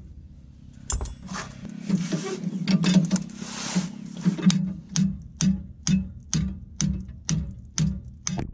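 Ratcheting wrench clicking in steady strokes, about two a second, as it works a nut on the truck's drag link. In the middle there is a stretch of hissing with scattered clicks, and then the strokes resume until they stop suddenly at the end.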